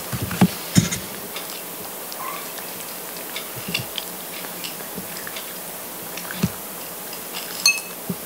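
Scattered small clicks and taps over a steady hiss, with the sharpest ones shortly after the start and near the end.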